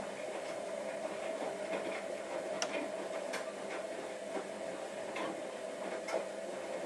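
Steady hiss of falling rain, with irregular ticks of drops hitting the feeder, roughly one or two a second.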